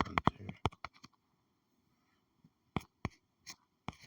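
Computer keyboard typing: a quick run of key clicks at the start, then after a pause about four single clicks.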